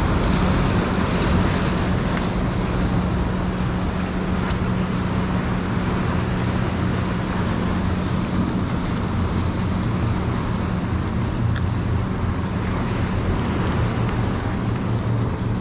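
Surf breaking and washing over the rocks of a jetty, with wind buffeting the microphone and a steady low engine drone from a motorboat underneath.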